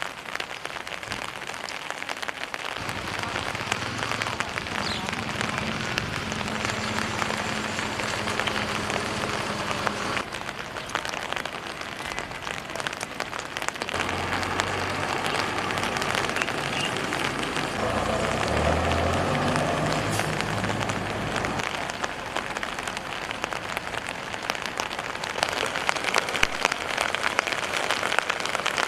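Heavy rain pouring down onto surfaces: a steady dense hiss and patter that grows louder near the end. A low hum comes and goes through the middle.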